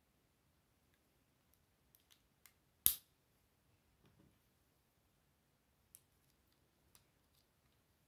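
Plastic Lego pieces clicking as they are handled and pressed together, with one sharp snap about three seconds in as a part goes into place, and a few fainter clicks around it.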